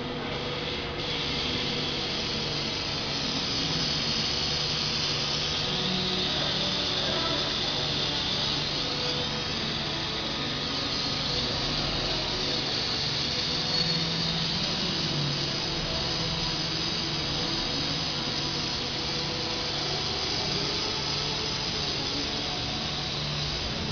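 Machinery running steadily: a continuous high whirring hiss over a faint low hum, with no breaks.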